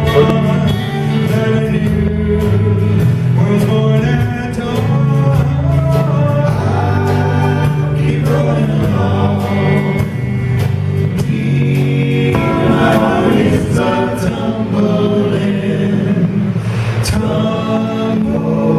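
Music with singing voices: a vocal song playing steadily throughout.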